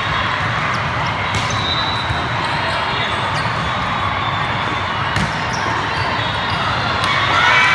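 Volleyball rally in a busy sports hall: a steady hubbub of voices, with three sharp slaps of the ball being hit a few seconds apart. Shouts rise near the end.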